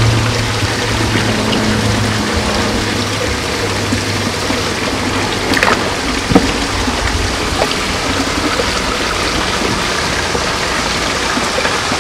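Water running and splashing steadily into a koi pond. A low hum fades out in the first few seconds, and there are two short sharp sounds about halfway through.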